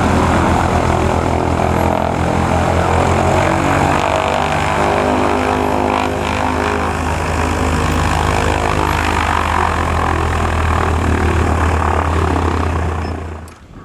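Single-engine light aircraft's piston engine and propeller running at low taxi power as the plane taxis in, the pitch shifting slightly part-way through. About 13 seconds in the engine is shut down and the sound dies away quickly.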